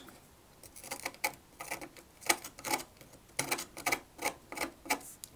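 Thin metal blade scraping crusty battery-leak corrosion off the battery contact of a Sony MZ-N707 MiniDisc Walkman: a run of irregular small clicks and scratches starting about a second in.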